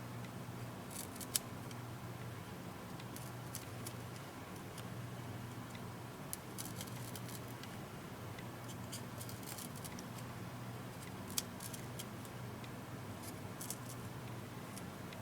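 Scattered small clicks, ticks and scrapes of tools and fingers working on a tablet's screen and adhesive during repair, over a steady low hum.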